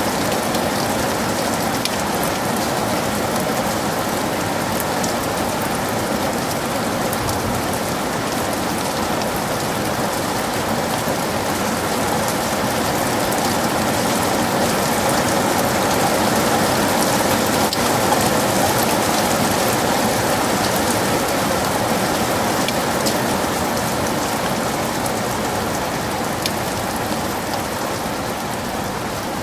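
Heavy rain falling steadily: a dense hiss of rain with fine individual drop hits, swelling slightly in the middle.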